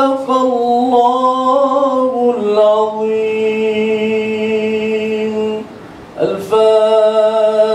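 A man reciting the Quran in a melodic, chanted style into a microphone: a wavering phrase, then a long held note, a brief pause for breath about six seconds in, and another long held note near the end.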